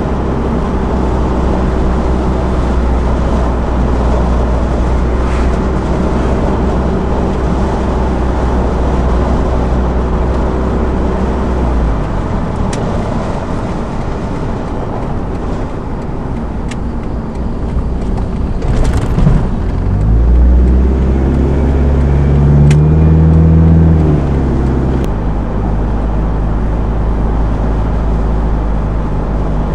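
Car engine and road noise heard from inside the cabin while driving. The steady hum changes about twelve seconds in, then rises in pitch as the car speeds up, steps down suddenly about two-thirds of the way through and settles back to a steady cruise.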